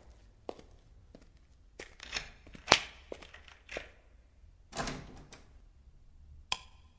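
A key working the lock of a metal apartment door: a series of sharp clicks and knocks, the loudest about three seconds in, then the door pulled open about five seconds in, with one more click near the end.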